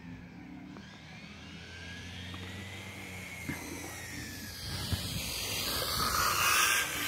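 Traxxas 4Tec 2.0 electric RC car on 6S power approaching at high speed and passing close by: a thin motor whine over rushing tyre noise that grows steadily louder, loudest just before the end, then starts to drop away.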